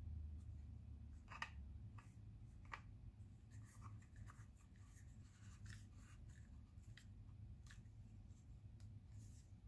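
Faint handling sounds, light clicks and scrapes, as a Canon EOS M200 camera body is turned and screwed onto the ball head of an Ulanzi MT-08 mini tripod. They come at irregular intervals over a low, steady hum.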